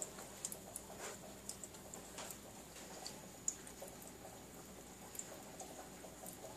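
Cat lapping water from a sink: faint, irregular small wet clicks of its tongue.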